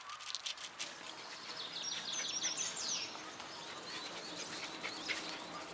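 Wild birds chirping, many short high calls in quick succession, beginning about a second and a half in after a few soft clicks.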